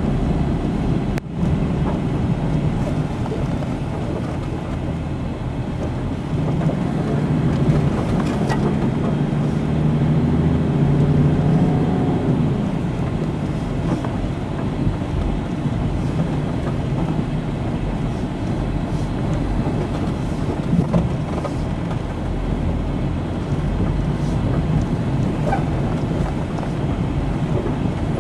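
Four-wheel-drive vehicle driving along a rough road, its engine running steadily with scattered knocks and rattles. A sharp knock comes about a second in, and the engine note climbs and then falls back in the middle.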